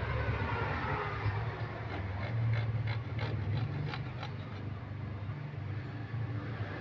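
Light scraping and small clicks of a tool cleaning the frame of a phone under repair, over a steady low hum.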